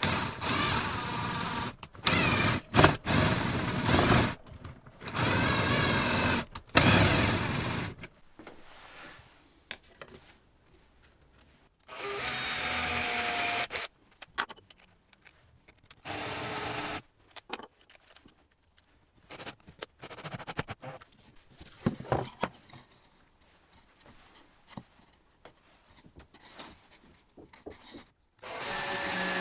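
Cordless impact driver driving screws into wood in repeated bursts of one to two seconds. Five bursts come in quick succession, then a few more come spaced out, with light handling clicks and knocks between them.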